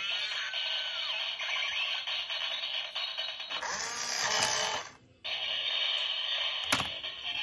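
Tinny electronic sound effects and music from the built-in speaker of a Road Rippers toy Nissan 350Z convertible, with some gliding tones. The sound cuts out about five seconds in and starts again a moment later. There is a sharp click near the end.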